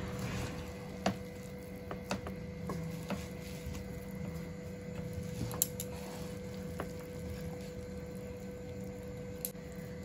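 Wooden spatula gently mixing cooked rice in a metal pot: soft squishing and scraping of the rice, with a few light taps of the spatula against the pot, over a faint steady hum.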